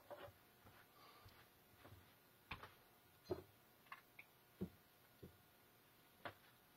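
Faint, scattered clicks and light knocks of small objects being handled and set down, about eight of them at uneven intervals over several seconds.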